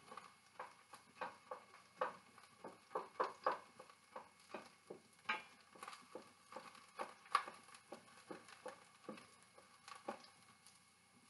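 A utensil scraping and tapping against a stainless steel skillet as crushed garlic is stirred in oil: irregular light clicks, a few a second, the loudest about seven seconds in.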